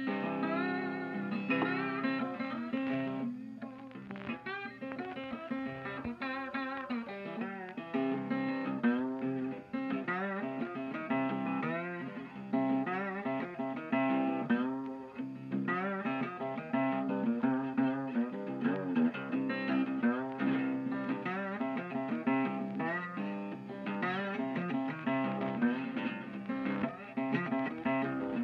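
Instrumental background music led by guitar, with picked and strummed notes and bending pitches.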